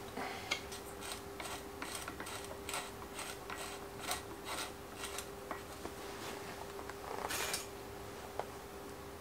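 Bicycle pedals being threaded into aluminium crank arms and tightened with a hex key: a run of light metallic clicks and ticks, about two a second, then a short scraping rub near the end.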